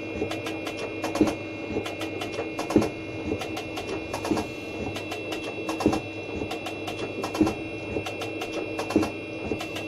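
Milling machine's slotting attachment cutting a spline: a sharp knock about every second and a half as the cutter strokes, with lighter clicks between, over a steady machine hum.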